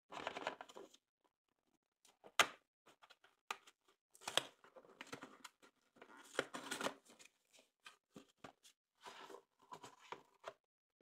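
Foil wrapper of a Kinder Surprise egg being torn and crinkled off, in irregular crackly bursts with several sharp clicks and snaps in between.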